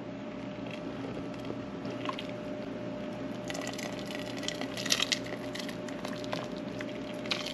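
Ladle stirring and scooping chunky chicken soup in a stockpot: soft sloshing and squishing of broth and vegetables, with a few light knocks of the ladle on the pot, over a steady low hum.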